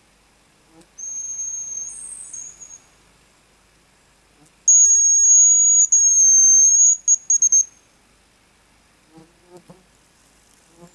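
Hazel grouse whistle calls: a thin, high whistle about a second in that ends in a short warbling trill, then a louder, longer high whistle from about five seconds in that breaks into a few short pips. A few faint rustles near the end.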